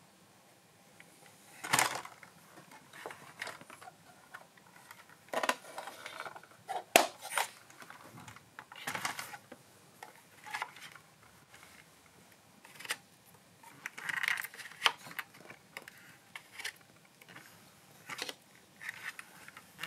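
Irregular clicks, taps and short rustles of small hard plastic objects being handled. The sharpest knocks come about two seconds in and again about seven seconds in.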